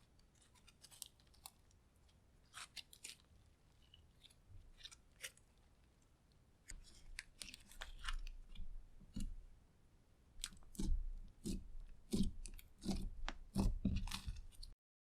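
Clear slime with lipstick mixed in being worked by hand, giving sticky clicks and small air-pocket pops. From about seven seconds in it turns to louder, wetter squelches as the slime is pressed and folded.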